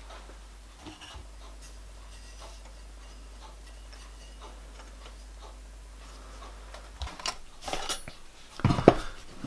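Quiet workshop room tone with a steady low hum and a few faint ticks. From about seven seconds in come irregular light metallic clinks and knocks, loudest near the end, as the gunmetal boiler dome casting and the copper boiler shell are handled and knocked together for a trial fit.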